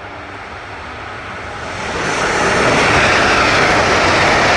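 Rushing noise of a high-speed train passing, as a sound effect: it swells sharply about two seconds in and then holds loud and steady.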